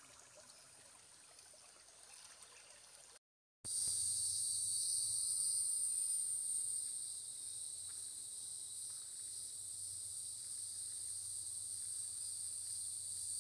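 A shallow creek trickles faintly over rocks, then breaks off in a brief silence at an edit. It is followed by a loud, steady high-pitched insect chorus that holds to the end.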